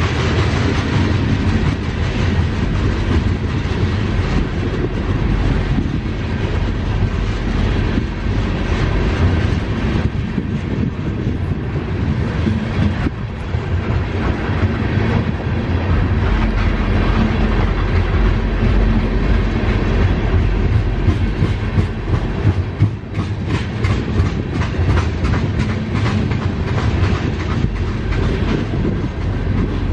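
Railroad tank cars of a long freight train rolling past at a grade crossing, a steady heavy rumble with the click of wheels over the rail joints, the clicks coming thicker in the later seconds.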